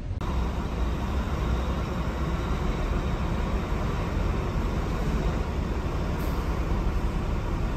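Iveco Eurocargo truck's diesel engine running, heard from inside the cab as a steady low hum under a broad hiss.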